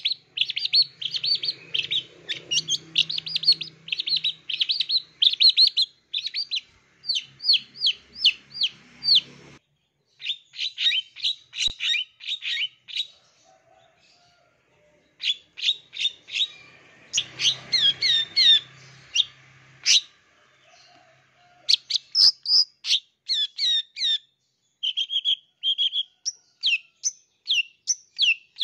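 Long-tailed shrike singing: fast runs of sharp, high chirps lasting several seconds at a time, broken by a few short pauses.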